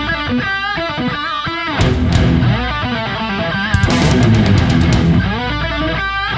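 Guitar-driven rock theme music with sharp percussive hits.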